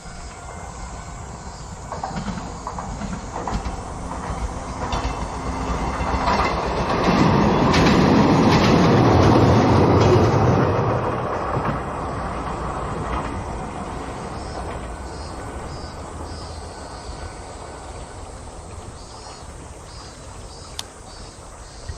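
A Moka Railway diesel train crossing the railway bridge, its wheels clattering over the rails, growing louder to a peak about eight seconds in and then fading away as it passes.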